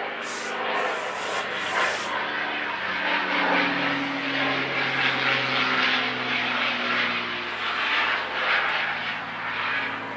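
Aerosol carb cleaner sprayed in three short hisses into the carburetor passages in the first two seconds. Under and after it, a steady engine drone whose pitch slowly falls.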